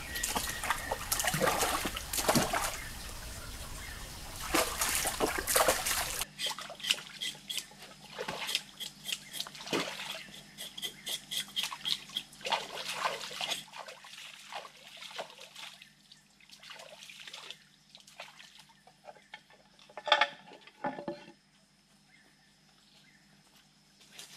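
A whole fish being rinsed and swished by hand in a shallow stream: water splashing, sloshing and trickling in irregular bursts that thin out in the second half. One sharp knock stands out about twenty seconds in.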